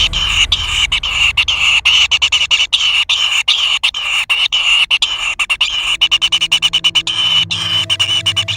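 Nestlings begging at the nest: a continuous, high-pitched chattering call broken by many rapid short gaps.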